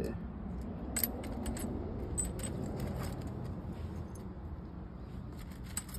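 Small metal drill bits and sockets clinking against each other as they are sorted through by hand, in a few scattered light clicks.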